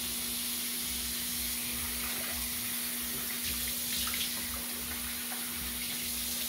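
Bathroom sink faucet running steadily as water is splashed onto the face to rinse off cleanser, with a few light splashes near the middle. A steady low hum runs alongside.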